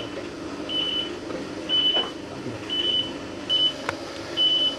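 A medical monitor beeping, a short high-pitched beep about once a second, as from a patient monitor sounding the pulse. A single sharp click comes about four seconds in.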